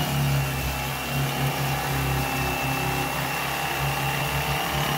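Corded electric fillet knife running steadily as its blades cut through a white crappie: a steady motor hum with a high whine.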